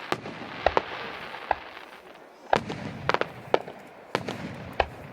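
Aerial fireworks bursting, with about a dozen sharp bangs at uneven intervals over a crackling hiss. The bangs are grouped closely around three seconds in.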